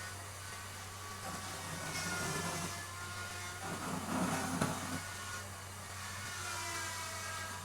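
Electric woodworking power tool running, with a steady hum and a whine that drifts slightly in pitch. About four seconds in, a louder rough, rasping stretch.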